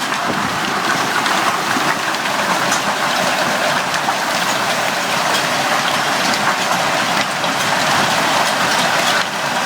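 Heavy hailstorm: hailstones and rain pelting down in a steady, dense din, with many individual hailstone impacts clicking through it.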